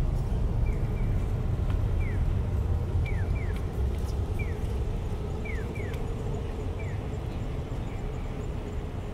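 Japanese pedestrian-crossing audio signal in its 'piyo, piyo-piyo' pattern. Short falling bird-like chirps come alternately single and double, about once a second, sounding while the walk light is green. Under it is a steady low rumble of city traffic.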